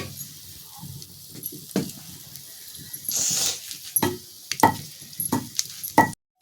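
Scattered knocks and clicks of kitchen utensils and cookware being handled, with a brief hiss about three seconds in.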